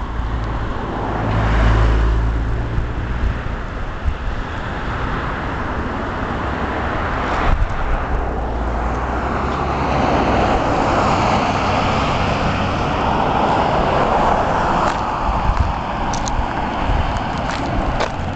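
Diesel engine of a Komatsu PC200 hydraulic excavator running steadily, a low rumble that grows louder and rougher about halfway through, with a few light clicks near the end.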